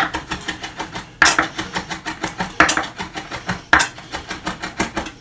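Chef's knife rapidly chopping fresh seaweed on a wooden cutting board: quick, even taps of the blade on the board, about seven a second, with a few harder strokes.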